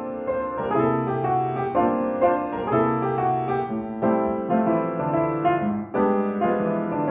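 Intro music played on keyboard: slow sustained chords that change about once a second.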